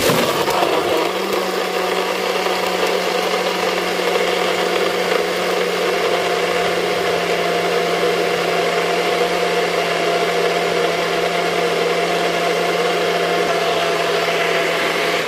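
Personal bullet-style blender motor running at full speed, blending a smoothie with ice in its cup. It starts abruptly, its pitch settles after about a second, then it holds a steady loud hum and stops abruptly.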